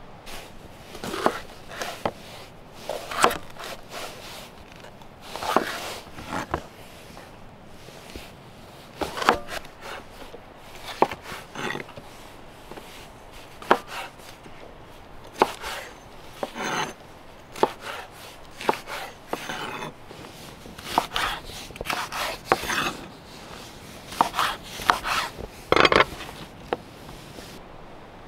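Kitchen knife cutting bell peppers on a wooden cutting board: irregular sharp knocks of the blade hitting the board, in short runs with pauses between.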